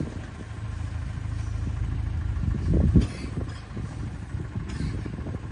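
Open safari vehicle's engine idling with a steady low hum, swelling louder for a moment about three seconds in.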